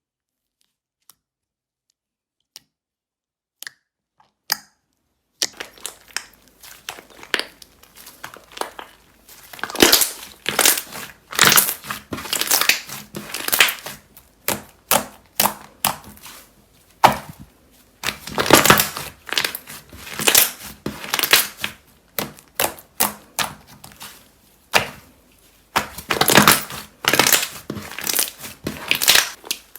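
Crunchy slime being pressed and squished, giving repeated crackling, crinkling crunches in clusters. The first few seconds are nearly silent apart from a few faint clicks.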